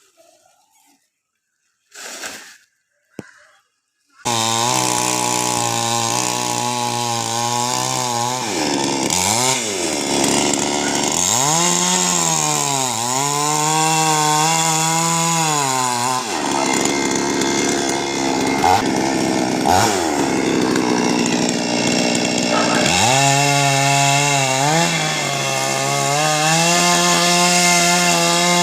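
A chainsaw starts running abruptly about four seconds in and keeps running loudly. Its engine pitch dips and recovers several times as it works, typical of the chain biting into a coconut palm trunk.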